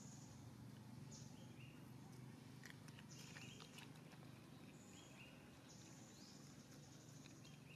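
Near silence: faint outdoor ambience with a low steady hum and faint high-pitched calls repeating every second or two in the background.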